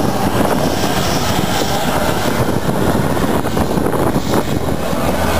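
Competition pulling tractor's tuned diesel engine running at full throttle under heavy load as it drags the weight sled, loud and steady, over-fuelled to the point of pouring black smoke.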